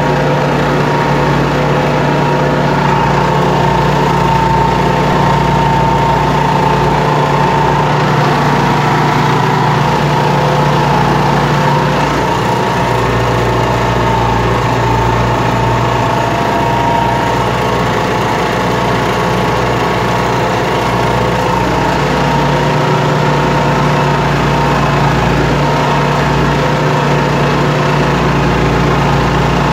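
Massey Ferguson 3095 tractor's diesel engine running steadily under load while pulling a four-bottom plough, heard from inside the cab. The low engine note eases for several seconds about halfway through, then comes back.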